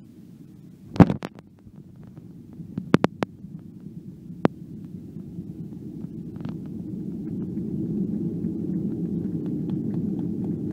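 Boeing 737 landing, heard from inside the cabin: a sharp thump about a second in as the wheels touch down, a few smaller knocks and rattles near three and four and a half seconds, then a low rumble that grows louder from about six seconds on as the jet rolls out with its spoilers up.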